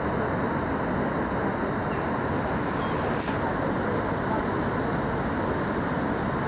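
Steady, even rumble of city road traffic, with no calls or splashes standing out.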